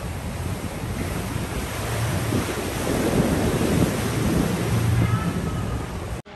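Wind buffeting the microphone over the wash of sea water, a dense steady rushing with heavy low rumble; it cuts off suddenly near the end.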